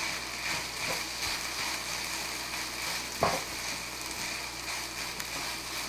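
Kimchi fried rice with bacon frying in a hot pan: a steady sizzling hiss, with a sharp knock about three seconds in and a lighter one about a second in.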